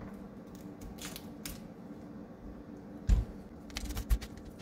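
A chef's knife cutting into the core of a raw cauliflower, with crisp snaps and clicks, and two heavier thuds against the cutting board a little after three seconds and about four seconds in, the first the loudest.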